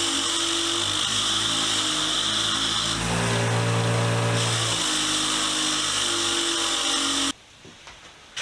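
Motor-driven wire wheel running steadily and scouring old paint off a steel pipe wrench, with a harsh hiss over the motor's hum. The tone shifts for a moment about three seconds in, and the sound cuts off abruptly about seven seconds in.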